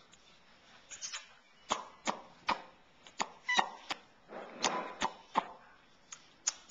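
A baby sucking and smacking on her fist: a string of short, irregular wet clicks, with a soft breathy sound near the middle.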